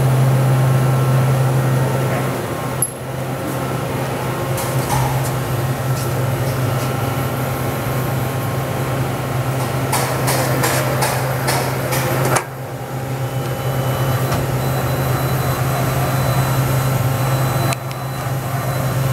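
Toyoda FA450 CNC horizontal machining center powered up, running with a steady low hum, with a quick rattle of clicks about ten seconds in.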